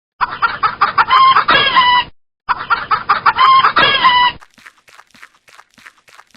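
Domestic chicken calling: the same two-second recording plays twice in a row, then fainter short clucks follow, a few each second.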